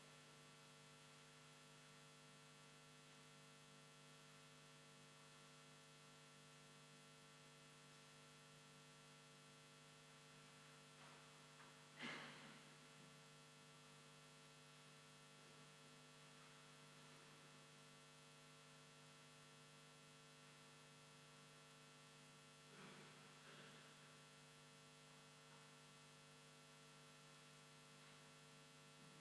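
Near silence with a steady electrical mains hum. There is one brief faint noise about twelve seconds in, and a couple of fainter ones a little after twenty seconds.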